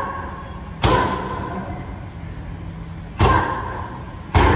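Boxing gloves striking a trainer's focus mitts during Muay Thai padwork: three sharp, echoing smacks, at uneven intervals.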